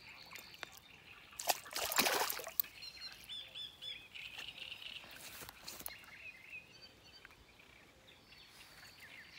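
Small birds chirping repeatedly. About two seconds in, a brief, loud splash-like rush of noise, as a hooked crucian carp is brought in at the water's edge.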